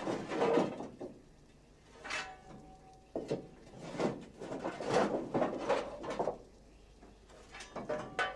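Coal briquettes clattering and knocking as they are handled on the footplate of a steam locomotive's cab: irregular knocks and scrapes, with a short metallic ring about two seconds in and again near the end.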